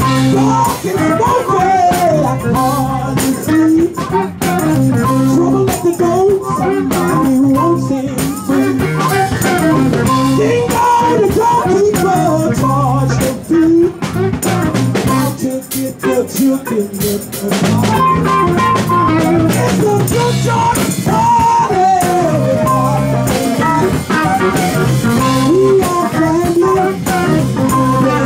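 Live blues band playing, with a woman singing through a microphone over it.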